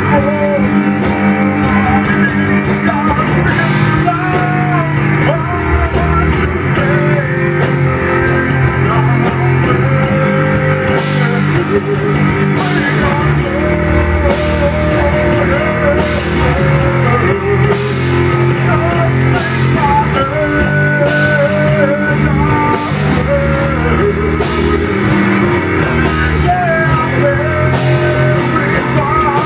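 Rock band playing live: electric guitar, bass guitar and drums. From about ten seconds in, a cymbal is struck about once a second.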